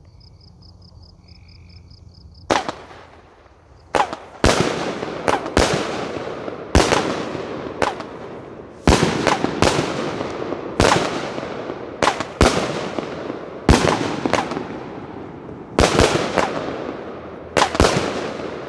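A 16-shot consumer firework cake firing. Before the first shot there is only faint rhythmic chirping; about two and a half seconds in the first shot goes off, and shots follow every second or so, each a sharp bang trailed by a fading crackling hiss.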